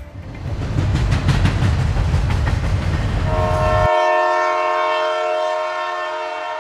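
Train rumbling and clattering along the rails, then a long steady train horn blast that starts about three seconds in, as the rumble cuts off abruptly.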